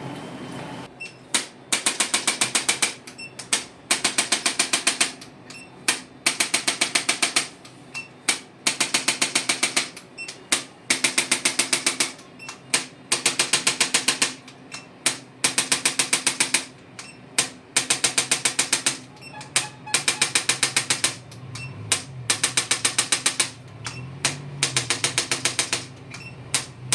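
Handheld percussion device being worked over a tight hamstring to release it: rapid, even clicking in bursts of one to two seconds with short pauses between.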